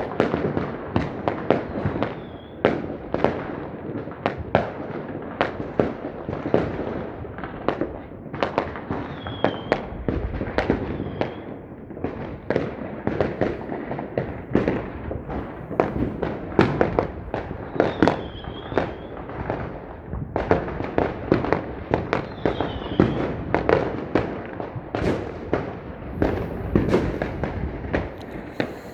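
Fireworks going off without a break: a dense, irregular run of bangs and crackles, several a second.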